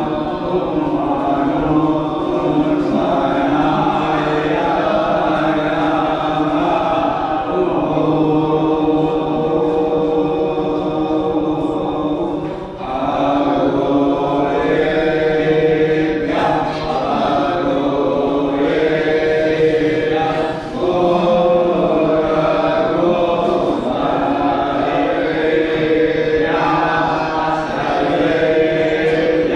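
Voices chanting Hindu mantras in long, held phrases, with short breaks about 13 and 21 seconds in.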